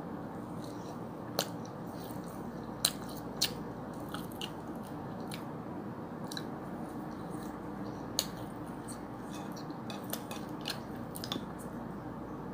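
A person eating up close: chewing and crunchy bites, with scattered sharp clicks over a steady low hiss.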